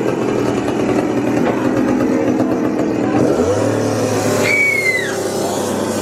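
Loud engine-like running and revving, its pitch rising and falling, with a short falling squeal about four and a half seconds in.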